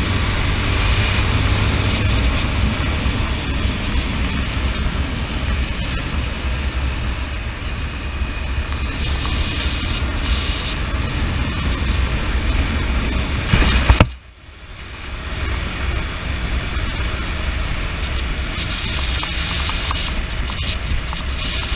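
Honda CB motorcycle riding at road speed: a steady engine rumble under wind noise on the onboard microphone. About fourteen seconds in, a brief loud burst is followed by the sound breaking off suddenly and building back up.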